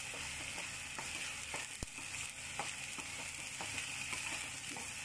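Ground onion and ginger-garlic paste frying in oil in a kadai, sizzling steadily while a metal spoon scrapes and taps against the pan as it is stirred. The masala is being sautéed until lightly browned.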